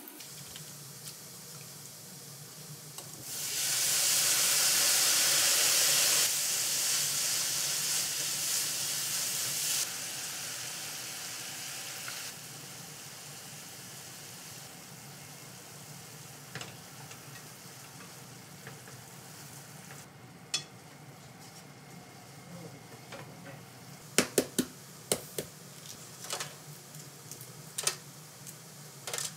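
Shredded burdock and carrot sizzling in a hot frying pan: a loud hiss that starts suddenly about three seconds in and dies down over the next ten seconds. Near the end, a string of sharp clicks and cracks as the shell of a cooled boiled egg is cracked and peeled.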